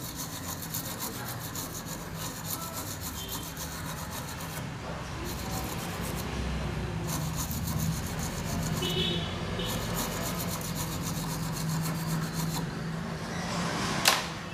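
Toothbrush bristles scrubbing rapidly on an amplifier circuit board in short spells, cleaning the sprayed preset trimmer that is suspected of causing the wrong voltages. A sharp knock comes near the end.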